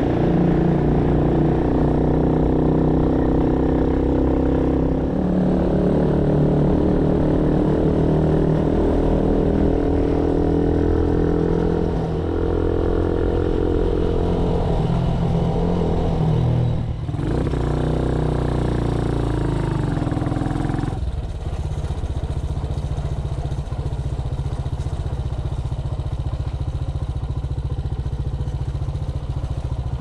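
Motorcycle engine running while riding, its note drifting up and down with the throttle. About 17 seconds in the sound breaks off and changes, and from about 21 seconds it settles into a steadier low rumble with little clear engine note.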